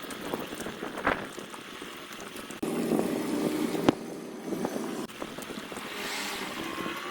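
Motorboat running on open water, with wind buffeting the microphone. The sound changes abruptly about two and a half and five seconds in, as between edited clips.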